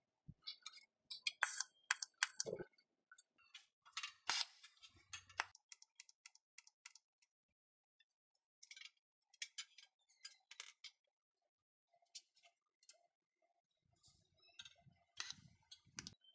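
Light clinks and knocks of steel tubing being handled and set against a steel frame, coming irregularly, busiest in the first few seconds and again near the end with a quieter stretch between.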